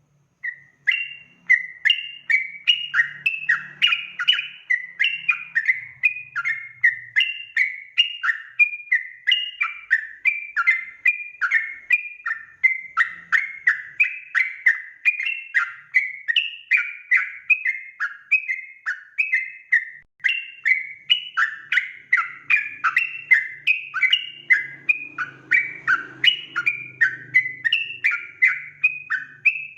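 Yellow-vented bulbul (trucukan) in non-stop rapid song: short, bubbling notes repeated a few times a second without pause, starting about half a second in.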